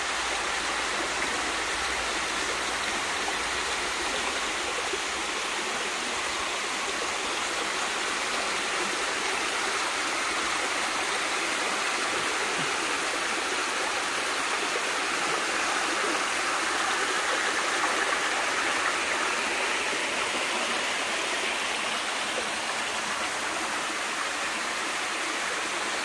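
Mountain stream rushing down rocky cascades: a steady rush of water that grows a little louder about two-thirds of the way through.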